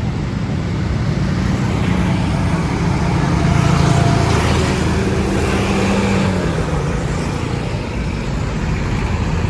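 Road traffic with a vehicle engine running close by, the engine and road noise swelling to a peak about four seconds in and then easing off.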